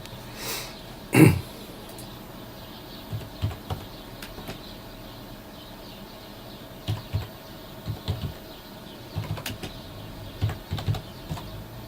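Scattered keystrokes on a computer keyboard in short clusters, with a soft breath near the start and a louder knock about a second in.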